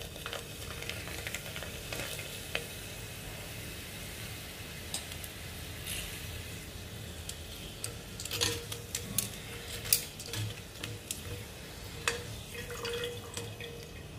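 Prawn crackers frying in hot oil in a stainless steel pot, a steady sizzle, with sharp clicks of tongs against the pot, several in the second half as the puffed crackers are turned and lifted out.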